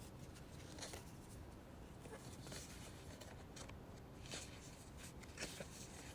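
Faint, brief rustles and scrapes of paper flashcards being handled, a handful of soft scratchy noises spread across a quiet room.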